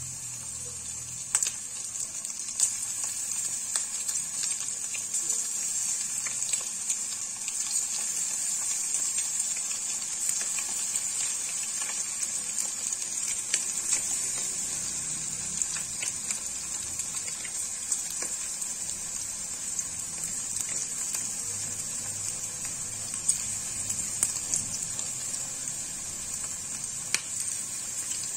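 Cornflour-battered bhetki fish pieces deep-frying in hot oil in a wok: a steady high sizzle with scattered sharp crackles and pops as the pieces bubble.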